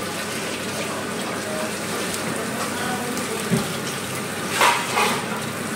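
Marinated chicken sizzling steadily in an oiled frying pan, with a slotted metal spatula scraping and knocking against the pan a few times in the second half.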